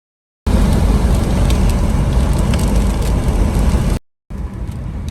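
Strong wind near a tornado blasting the microphone: a loud low rumble with scattered sharp ticks. It cuts in abruptly about half a second in and cuts out shortly before the end, then returns as quieter wind.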